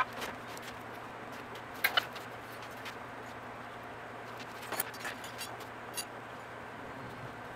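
Hand tools and loose parts of a 1952 MG TD engine clanking and clicking sharply during teardown: one knock at the start, a double knock about two seconds in, and a few more around five to six seconds, over a steady low hum.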